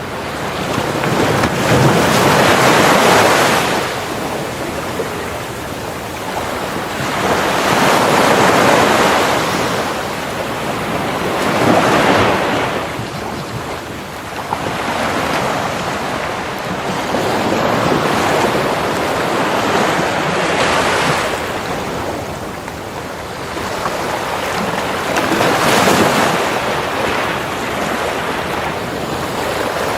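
Ocean surf breaking and washing up a beach, in broad swells that rise and fall every four to six seconds.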